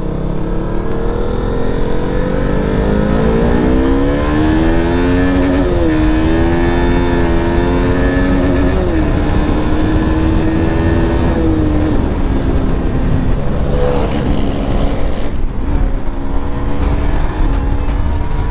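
KTM RC sportbike's single-cylinder engine accelerating hard, its pitch climbing and then dropping at three upshifts about 6, 9 and 12 seconds in, after which it runs steadily at speed and rises slowly near the end. Low wind rumble runs under it.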